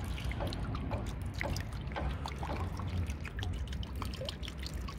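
Grape vinegar dribbling in a thin stream from a plastic bottle's barely opened inner cap into a basin of water, making irregular small drips and splashes on the water's surface.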